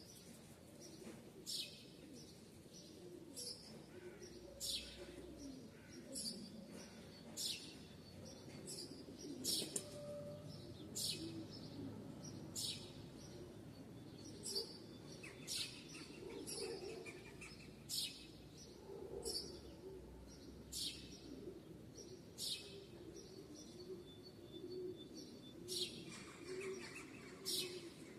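Birds chirping: short, high chirps repeating about once or twice a second, over a faint low wavering sound.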